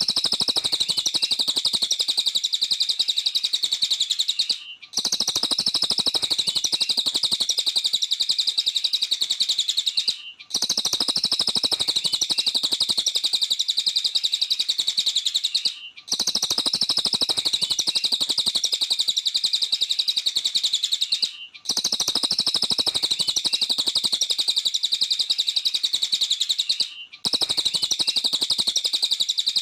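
Cililin songbird singing continuously in a dense stream of rapid high chirps and trills. It breaks off briefly about every five and a half seconds, as a short looped recording does.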